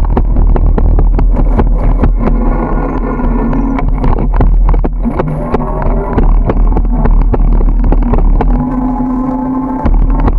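Ride noise from a camera mounted on a moving bicycle: a loud low rumble of wind and road on the microphone, with frequent knocks and rattles from bumps. A steady droning tone comes in twice, about two seconds in and again near the end.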